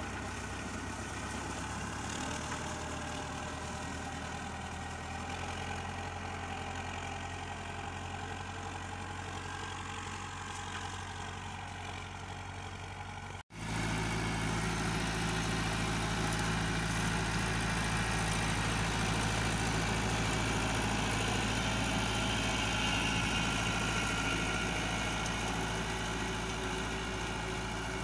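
Iseki 7020A tractor's diesel engine running steadily under load while pulling a disc harrow across a field. About halfway through, the sound cuts out for an instant and the engine then comes back louder and closer.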